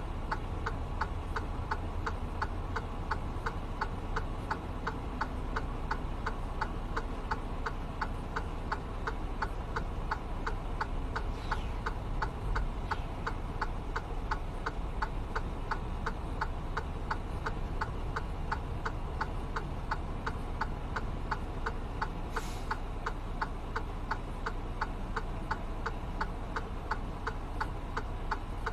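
Turn-signal or hazard-light flasher clicking steadily and evenly inside a stopped truck's cab, over the low hum of the idling engine.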